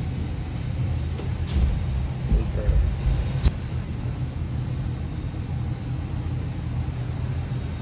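Steady low rumble of airport apron noise heard through a terminal window, with a few low thumps in the first three seconds and a sharp click about three and a half seconds in.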